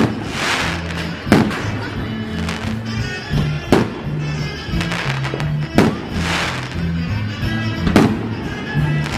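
Aerial firework shells bursting: sharp bangs a second or two apart, some followed by a hissing crackle, heard over music with a steady bass line.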